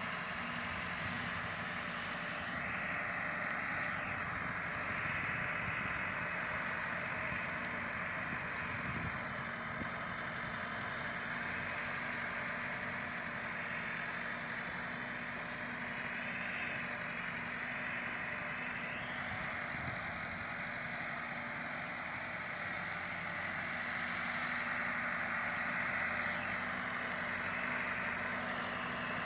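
Massey Ferguson 375 tractor's four-cylinder diesel engine running steadily under load as it pulls a land leveller across tilled soil, growing a little louder near the end.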